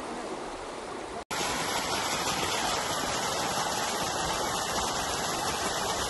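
Steady rush of flowing water from a stream or waterfall. It cuts out abruptly about a second in and comes back louder.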